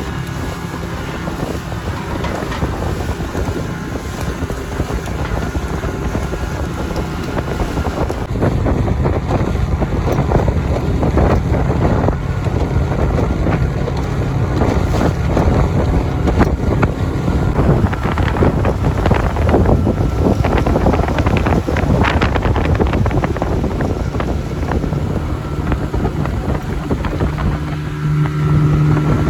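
Motorboat engine running steadily while under way, with heavy wind buffeting the microphone. The engine grows somewhat louder about a third of the way through.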